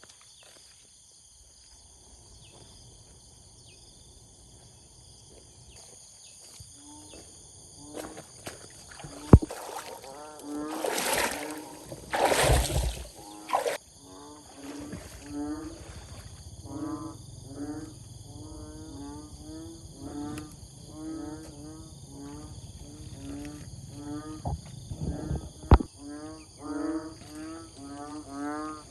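Repeated short animal calls, one or two a second, starting about eight seconds in. Around them are a sharp knock, a loud noisy stretch lasting a couple of seconds, and a steady high-pitched whine underneath throughout.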